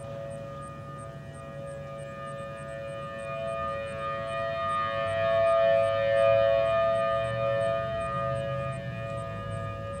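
Federal Signal civil defense sirens, chiefly a Model 5 and a Thunderbolt, sounding a steady test tone made of two close pitches. The sound swells to its loudest about six seconds in as the rotating siren heads turn toward the listener, then eases off.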